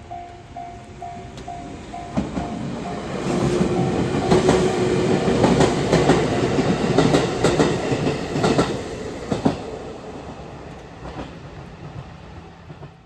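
A train passing close by, its wheels clattering over the rail joints, loudest in the middle and fading toward the end. At the start, a level-crossing bell rings a repeating tone about twice a second and dies away about two seconds in.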